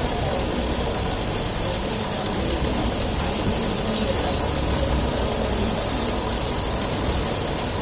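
Industrial sewing machine fitted with a ruffler (pleating) attachment, running steadily as it stitches pleats into cloth.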